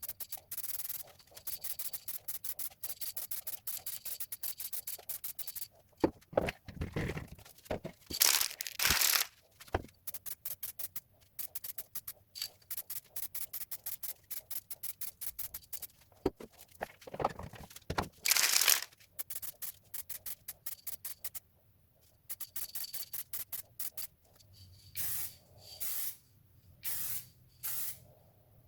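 Aerosol spray can of black paint hissing in short bursts, several quick ones near the end, as a first sanding coat goes onto 3D-printed PLA. A fast, even ticking runs underneath, with a few handling knocks.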